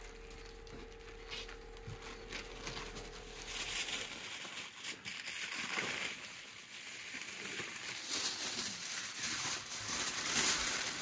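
Aluminium foil crinkling and rustling unevenly as it is folded and pressed around a paper-wrapped whole turkey, growing louder from about four seconds in.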